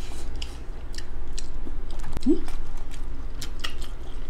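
Close-miked chewing and wet mouth clicks and smacks of people eating chicken curry and rice with their hands, with a short hummed "mm" about two seconds in.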